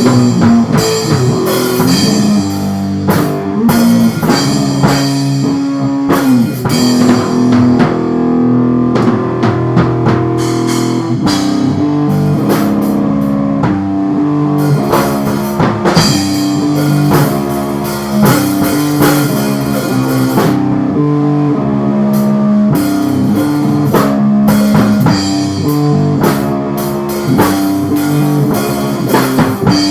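Instrumental rock music: electric guitar and bass over a drum kit, with the drums thinning out for a few seconds around a third of the way in.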